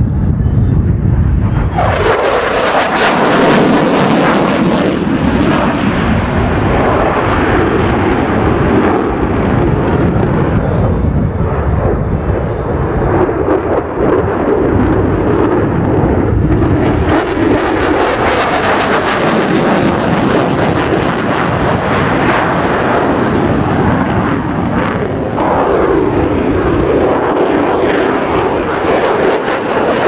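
A USAF F-35A Lightning II's single jet engine at high display power: a loud, continuous roar that shifts in tone as the jet passes and turns overhead. The sound changes character about two seconds in and swells again near the end.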